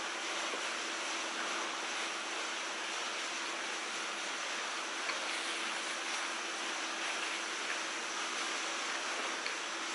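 Steady hiss with a faint low hum, the background noise of an indoor recording, with a few faint ticks from chewing pizza.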